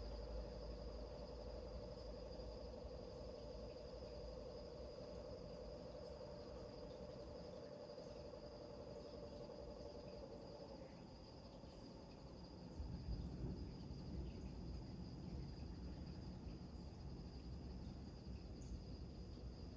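Crickets chirring steadily with a high, even trill, under a lower steady droning call that stops a little past halfway. A low rumble comes in about two-thirds of the way through.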